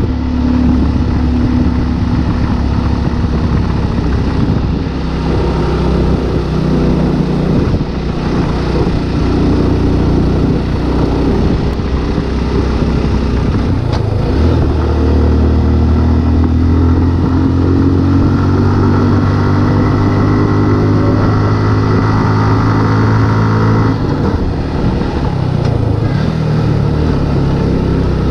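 Motorcycle engine running while being ridden, its pitch climbing steadily for several seconds midway as it accelerates, then dropping off near the end as the throttle eases.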